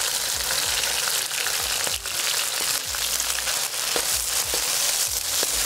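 Shrimp and chicken sizzling in hot oil in a wok over a high gas flame, with a few light clicks of the spatula against the wok as the food is stirred.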